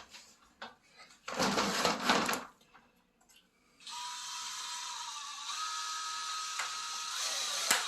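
A brief rustle, then a cordless drill running steadily, its motor whine stepping up in pitch partway through.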